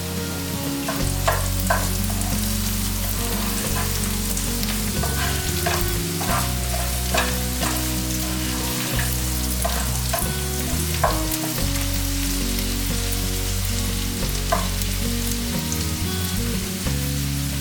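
Food sizzling as it fries in a pan, with a utensil clicking against the pan about a dozen times while it is stirred.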